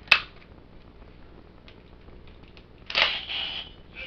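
Sharp plastic click from a toy weapon's part being snapped or worked by hand, followed about three seconds in by a short clatter of plastic parts.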